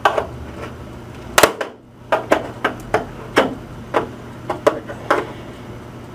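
Sharp plastic clicks and snaps, about a dozen at irregular intervals, as a screwdriver is worked into the seam of an LCD TV's plastic back cover to pry its clip hooks apart.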